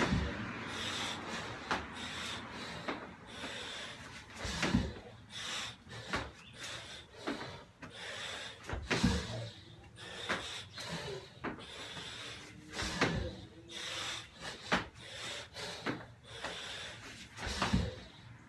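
A person doing burpees on a rubber gym floor. A heavy thud comes about every four seconds as he drops to the floor or lands, with hard, noisy breathing in between.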